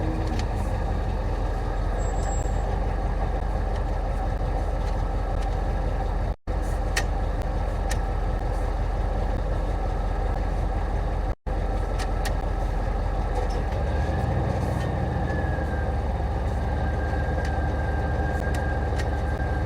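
Steady low engine rumble of a running vehicle, broken twice by a brief dropout, with a faint high whine coming in about two-thirds of the way through.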